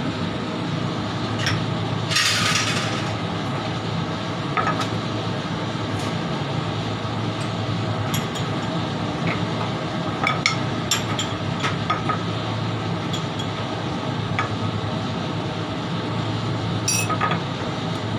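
A steady mechanical hum, with scattered light clinks of a metal spoon and utensils against ceramic spoons and a frying pan, and a brief hiss about two seconds in.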